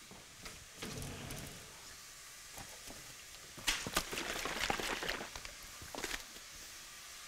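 Quiet footsteps and handling noises on a hard kitchen floor: soft steps, then a cluster of rustles and light knocks about four seconds in as a broth carton is handled, and a short knock or rustle about a second later.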